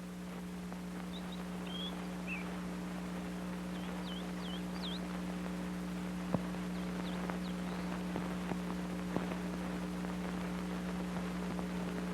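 Faint, short bird chirps, several in quick succession, over a steady low hum with scattered clicks and crackle.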